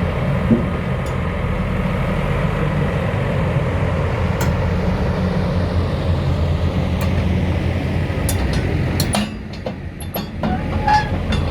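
JCB 220X tracked excavator running, its 175 hp diesel engine giving a loud, steady low drone with a rattling, train-like clatter. About nine seconds in the drone eases and a series of sharp metallic clicks and knocks follows.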